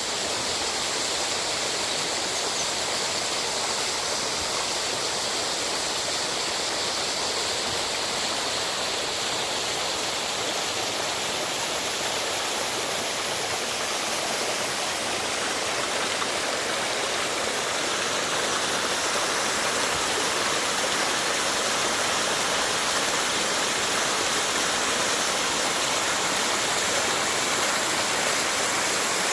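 Waterfall: a steady rush of falling water, growing slightly louder about two-thirds of the way through.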